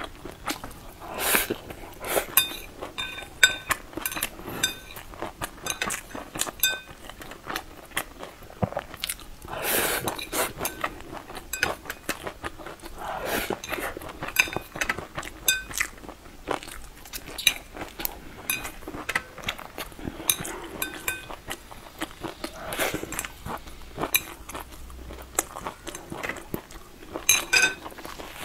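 Close-miked chewing and slurping of a stir-fried noodle dish, with several louder hazy mouthfuls. Chopsticks click and scrape against a porcelain bowl throughout, and the bowl rings briefly with some taps.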